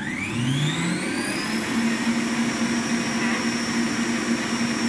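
Electric stand mixer turned up to its highest speed. Its motor whine rises over the first second or so, then holds steady as the wire whisk beats sponge-cake batter.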